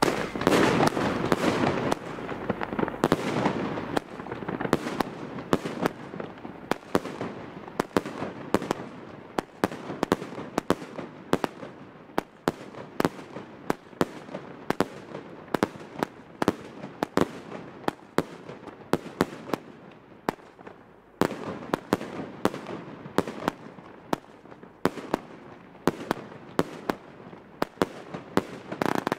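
A 45-shot kamuro firework battery (cake) firing shot after shot: sharp reports in quick succession, roughly two a second and thickest in the first few seconds, over a constant hissing haze from the burning shells.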